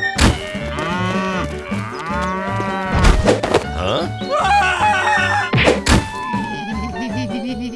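Cartoon sound effects over background music: a cow mooing, several sharp thunks, and a long falling tone near the end.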